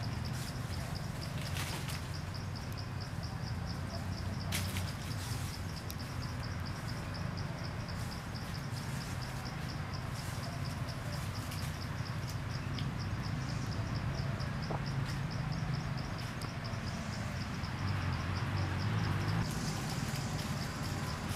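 An insect chirping high and steady in an even pulsing rhythm, over a low steady rumble.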